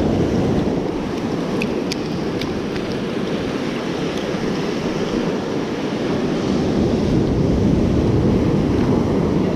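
Surf breaking and washing up the beach, with wind buffeting the microphone, getting a little louder in the second half. A few faint ticks about two seconds in.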